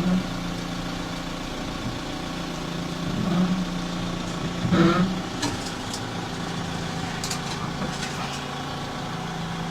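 Car engine idling steadily as the car reverses slowly down off drive-on ramps, with a brief louder sound about five seconds in.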